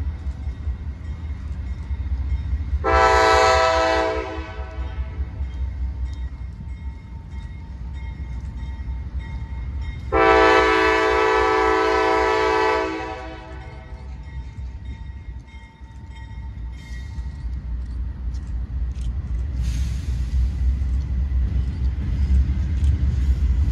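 Diesel locomotive air horn sounding twice as the train approaches: a short blast about three seconds in and a longer blast of nearly three seconds about ten seconds in. Underneath, a low rumble builds toward the end as the train draws nearer.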